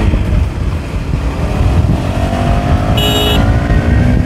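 KTM Duke 250's single-cylinder engine accelerating hard, its pitch dropping at a gear change right at the start and then climbing steadily again, with wind rumbling on the microphone. A short high beep sounds about three seconds in.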